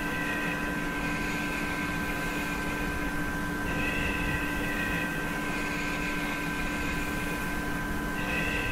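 Electronic drone soundtrack: a steady hiss with several held tones underneath, and a higher pair of tones that swells in about every four and a half seconds, about halfway through and again near the end.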